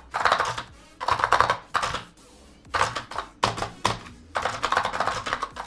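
Typing on a Redragon K605 Alien mechanical keyboard during a speed test: quick runs of key clicks broken by short pauses, the longest about two seconds in.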